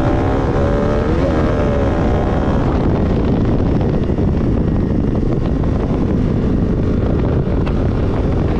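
Bajaj Pulsar RS 200's single-cylinder engine, fitted with an imitation Akrapovic exhaust, accelerating hard under throttle, its note rising and changing in the first two or three seconds. After that, wind rushing over the microphone at speed mostly covers the engine.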